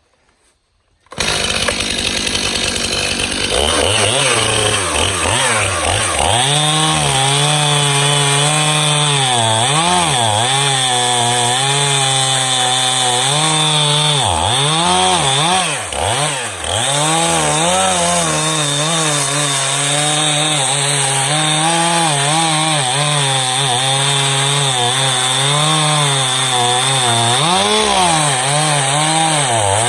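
Stihl MS291 two-stroke chainsaw running at full throttle while crosscutting a tough hickory block, starting about a second in. Its pitch keeps sagging and recovering as the chain loads up in the hardwood, with a brief dip about halfway through.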